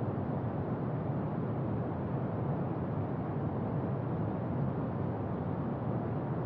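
Brown noise: a steady, even rushing hiss, heaviest in the bass and dull in the treble, with no changes or events.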